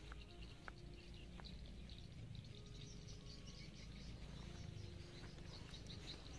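Faint outdoor ambience with high-pitched chirping repeating throughout, and a few faint ticks.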